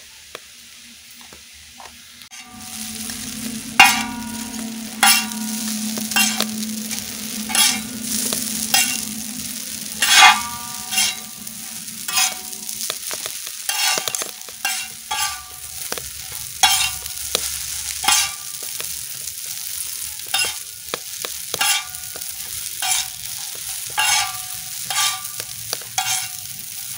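Chowmein noodles stir-frying on a large flat tawa: a steady sizzle, with a metal spatula striking and scraping the pan about once a second. Each strike rings briefly. The sound starts about two seconds in, with a low hum under it through the first half.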